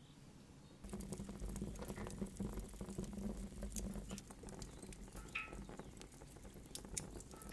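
Wood fire crackling in the firebox of a brick Russian stove: dense sharp crackles and pops over a low steady rumble, starting about a second in.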